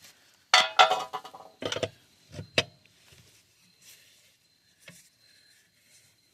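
Loose metal parts clattering and clinking: a loud jangling clatter about half a second in, then a few sharp clinks, then only faint handling noise.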